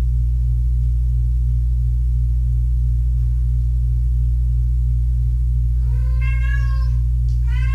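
A kitten meowing twice near the end, over a steady low hum.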